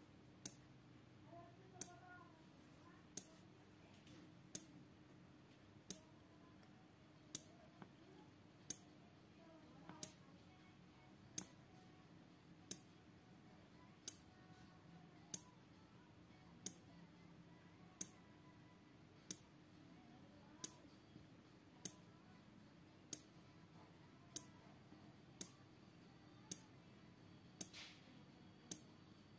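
Small 12 V relay in a homemade flasher circuit clicking as it switches the LED lamp, one sharp click about every 1.3 seconds. The clicks come a little faster toward the end as the speed-control potentiometer is turned up.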